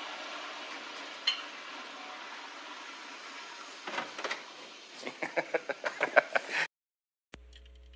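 Tail of the soundtrack: a fading noisy wash with one click, then a fast run of ticks, about six a second and growing louder, that cuts off abruptly about two-thirds of the way in. After a brief silence a faint steady electrical hum takes over.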